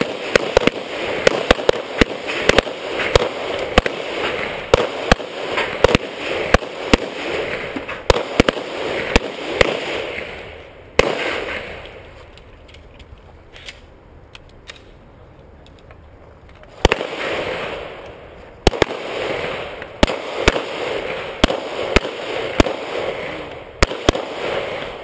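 Several handguns firing rapid, overlapping strings of shots at bowling pins. Just before halfway the firing stops for about five seconds, then resumes.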